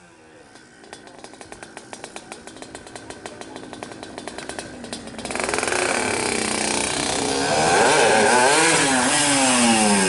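Race-tuned Yamaha RX-King 135 cc two-stroke single-cylinder engine at high revs, its rapid crackling firing getting steadily louder. About five seconds in it jumps louder, and over the last few seconds its pitch sweeps up and down repeatedly as the throttle is worked.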